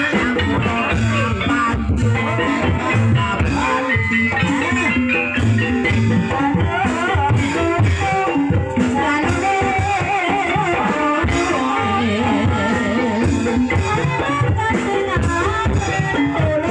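Live campursari music: a wavering sung vocal line over drums and pitched instruments, played steadily.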